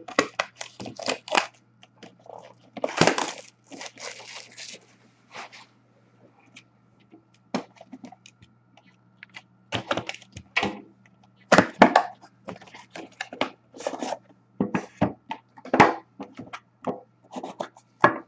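A trading-card box being opened by hand: irregular tearing, crinkling and crackling of its wrapper and packaging, with short sharp handling noises.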